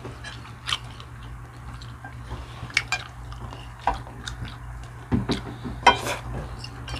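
Close-up eating sounds: food being bitten and chewed, with scattered small clicks of cutlery against dishes, over a steady low hum.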